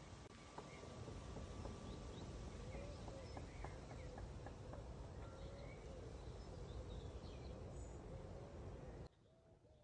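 Garden ambience: a steady low rumble with birds calling, scattered short high chirps and a few low, wavering calls. It cuts off abruptly about nine seconds in.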